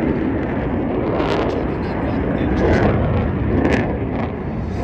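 Jet noise from F-15 fighters flying past, their twin Pratt & Whitney F100 turbofans heard as a loud, steady rush that swells a little near the middle.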